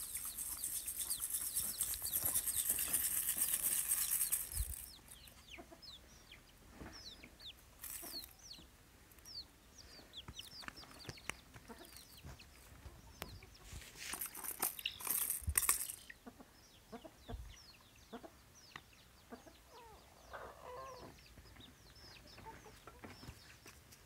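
Chicks peeping: a running series of short, falling chirps. A high hiss lies under the first few seconds, and there are a few sharp knocks or rustles about two-thirds of the way through.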